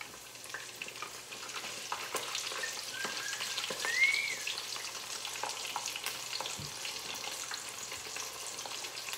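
Hot oil sizzling steadily with many small crackles as a Hot Cheetos-crusted hamburger patty deep-fries with onions and bell peppers. A brief rising high tone sounds about four seconds in.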